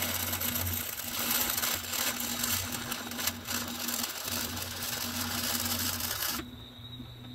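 Electric arc welder crackling steadily while a short stitch weld is laid on a steel mower bagger mounting bracket. The crackle stops abruptly about six and a half seconds in, when the stitch is finished.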